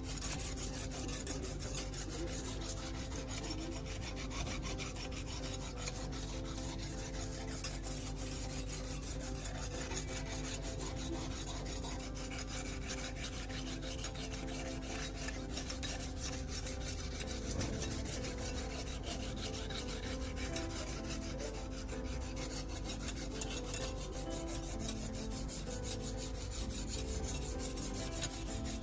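Knife blade being stroked over water-wetted 400-grit sandpaper at a fixed 20-degree angle in a guided sharpening jig: a steady rasping scrape of steel on coarse abrasive, the first, coarse stage of sharpening the edge.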